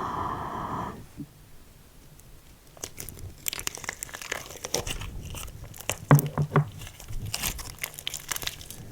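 Hands squeezing and stretching slime, with crackling, crinkling clicks and a few small pops that start about three seconds in.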